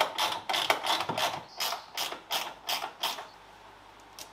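Hand tool, apparently a ratchet, clicking in a quick series of short strokes, about three a second, while the fasteners of a Caterham Super Seven's pedal box cover are undone. The strokes stop about three and a half seconds in.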